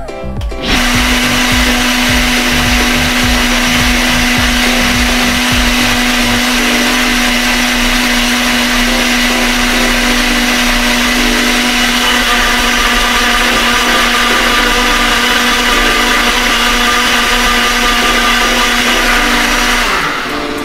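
Ninja Auto-iQ blender motor running, puréeing cooked tomatoes into sauce: it starts about a second in, holds a steady pitch for about twenty seconds with an uneven low churning during the first few seconds as the chunks break down, then stops near the end.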